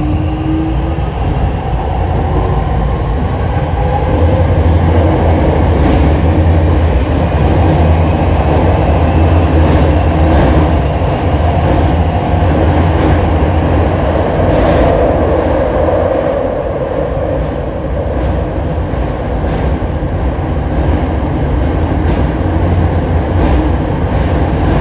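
Hokushin Kyuko 7000-series electric train running on the Seishin-Yamate subway line, recorded aboard: a steady rumble of wheels and motors, with a motor tone falling in pitch near the start and scattered clicks from the wheels over the track.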